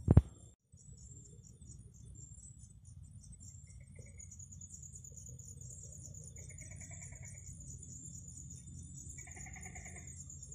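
Night-time insect chorus in tropical forest: a steady, high-pitched pulsing buzz, with short trilling calls from another animal three times. A loud knock comes just after the start.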